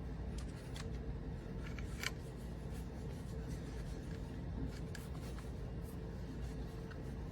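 Small battery-powered clip-on fan running with a steady low whir, with scattered light clicks and rustles of the fan being handled.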